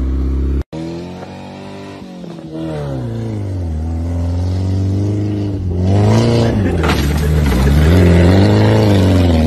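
A small old hatchback's engine revving hard as the car is driven off-road through grass and brush, its pitch climbing and falling several times and getting louder in the second half. The sound cuts out for an instant just under a second in.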